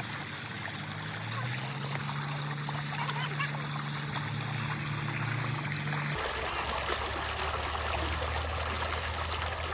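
Water trickling and splashing steadily over a low steady hum. The background changes abruptly about six seconds in.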